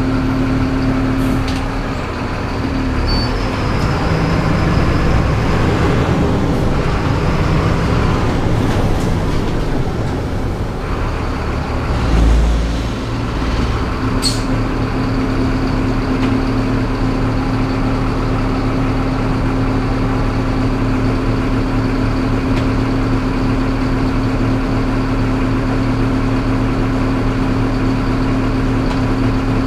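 Mercedes-Benz city bus diesel engine heard from the driver's seat as the bus drives a short way and stops. About halfway through there is a loud low thump, then a sharp click, and after that the engine idles steadily.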